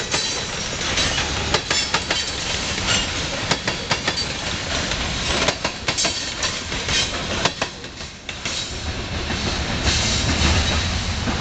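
Loaded covered hopper cars of a grain train rolling past, the wheels clacking irregularly over the rail joints. The clacking stops about eight seconds in as the last car goes by, leaving a duller low rumble.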